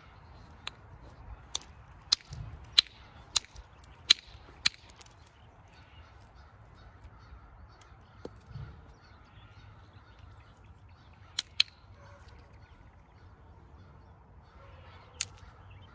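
Sharp clicks of a copper-tipped knapping tool striking the edge of a creek flint flake, knocking off flakes. About seven strikes come in quick succession over the first five seconds, then a few more follow singly.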